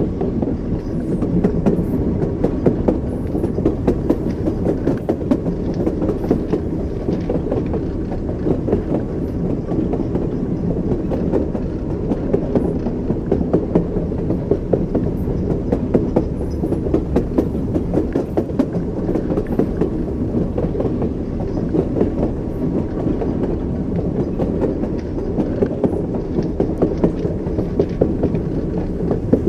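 Train wheels running over rail joints: a continuous rumble with frequent irregular clicks from the wheels, the clickety-clack of a moving train.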